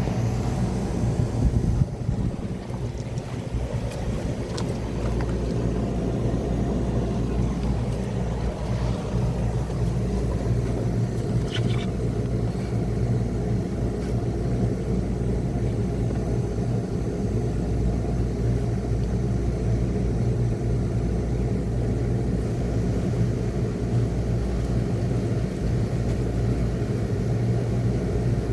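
Midea 5,000 BTU window air conditioner running, with a steady low hum under a rushing noise.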